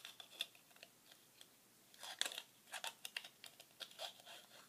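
Faint small clicks and plastic rattles of batteries being handled and pushed into the plastic battery box of a copper-wire light string, scattered and irregular, busiest in the second half.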